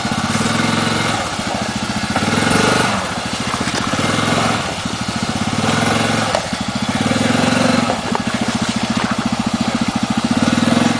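Four-wheeler ATV engine under load, revving up and easing off in repeated surges as the quad crawls over rocks in a steep rutted gully.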